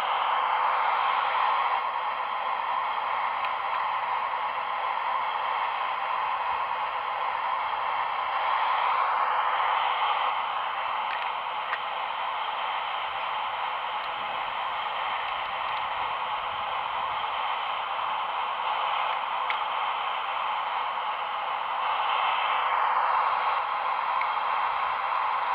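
Radio-controlled model machinery running, a steady whirring hiss from its electric drive and hydraulic pump. It grows louder three times: near the start, about nine seconds in, and about twenty-three seconds in.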